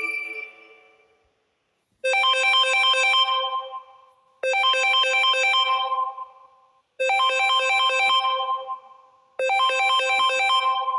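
Phone ringtone playing: a short burst of quick electronic notes, repeated four times about every two and a half seconds, each burst dying away before the next. The tail of a previous tone fades out in the first second.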